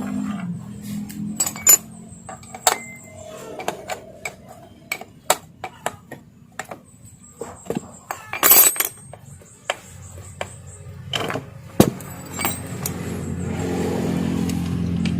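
Small metal clicks and clinks of sewing-machine parts and tools being handled and fitted, irregular and sharp, one cluster louder about eight and a half seconds in. A low hum sits under them and grows louder in the last few seconds.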